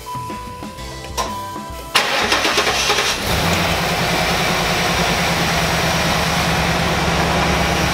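Pontiac Trans Am's 5.7-litre LT1 V8 cranking on the starter for about a second, catching about two to three seconds in and then running steadily. This is its first start after the intake manifold gasket replacement.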